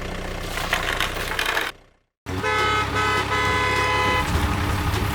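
A car engine running after being started, cutting out to silence about two seconds in. It comes back with the horn honking twice in long steady toots over the running engine.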